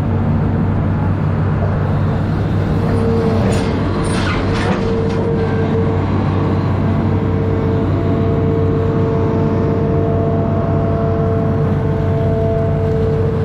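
Amphibious excavator's diesel engine running steadily under load, with a steady whine over it. A short burst of clattering comes about four seconds in.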